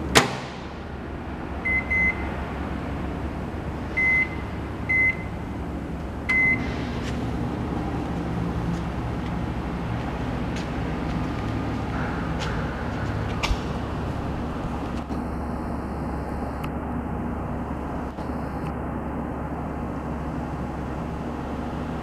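Haier microwave oven's door latching shut with a sharp click, then five short keypad beeps, and the oven running with a steady hum.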